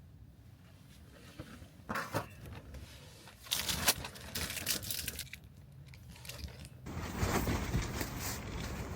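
Strong gusty wind, coming in irregular rushes at first and turning into a steady, louder rush from about seven seconds in.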